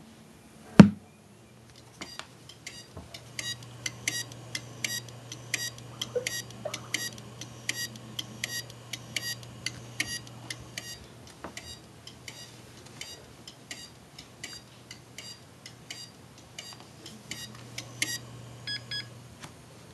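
Failed 2005 Maxtor hard drive clicking over and over, a few sharp ticks a second over a low steady hum: the repeated head clicking of a dead drive. One loud knock just under a second in.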